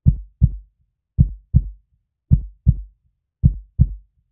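Heartbeat: four slow lub-dub pairs of low thumps, about one pair a second. The first thump of each pair is the stronger.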